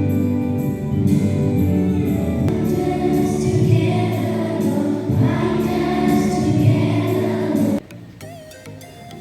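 A choir singing with instrumental accompaniment, loud and steady; the music stops abruptly about eight seconds in and only a much fainter sound remains.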